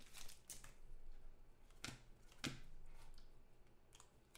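Football trading cards being handled and sorted by hand: faint slides of card stock with four or so light clicks as the cards tap together.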